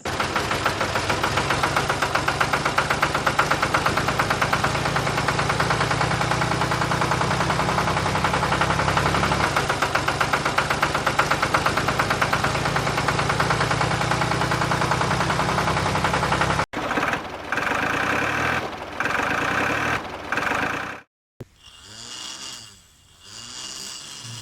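A motor or engine running steadily with a fast, even chugging pulse. It cuts off suddenly about sixteen and a half seconds in, and a few shorter bursts of running follow.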